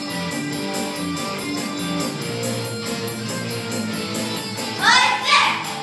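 Backing music with held, melodic notes; about five seconds in, two loud, brief sweeping sounds rise over it.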